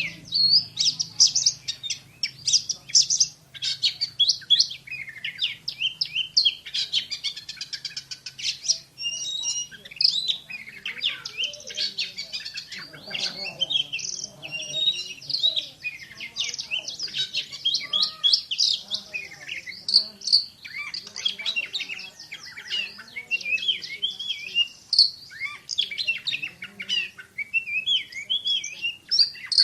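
Oriental magpie-robin (kacer) singing continuously in a fast 'tembakan' (shooting) style: rapid, tightly packed sharp high notes and short sweeps with barely a break.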